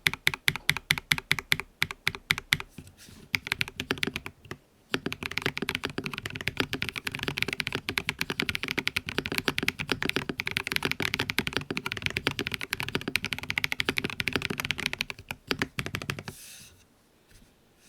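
Mechanical keyboard with lubed Tecsee Purple Panda 68 g tactile switches (Tribosys 3203 on housings and stem) on a KBD67 R3 being typed on. It starts with steady, evenly spaced keystrokes, pauses briefly, then breaks into fast continuous typing that stops near the end.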